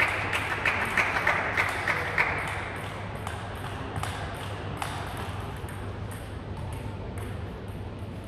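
Table tennis ball clicking off bats and table in a quick rally for about the first two seconds, then only a few scattered taps of the ball, with the clicks ringing in a large hall.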